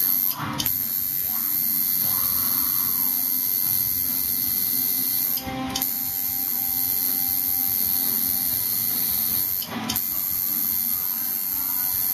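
Electric tattoo machine buzzing steadily as the needle works into skin, cutting out briefly three times: about half a second in, around the middle, and near the end.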